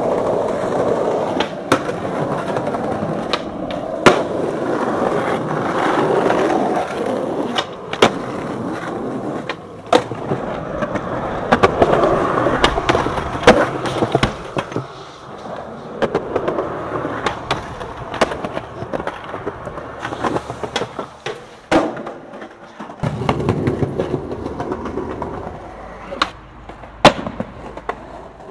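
Skateboard wheels rolling over concrete and asphalt, broken again and again by sharp cracks of the board popping, landing and slapping the ground across a run of separate tricks and tries.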